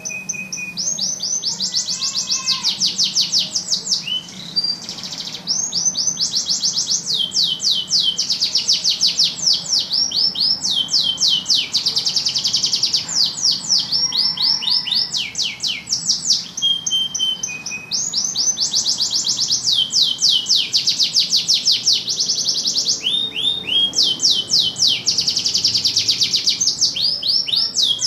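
Domestic canary singing a long song of rapid trills: each phrase is a fast run of the same sweeping note, and the bird switches to a new trill every second or two with short pauses between.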